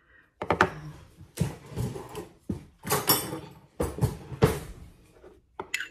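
Handling noises from a glass jar and the phone recording it: a run of short rustles and knocks as the jar is set down on the table and the phone is moved about.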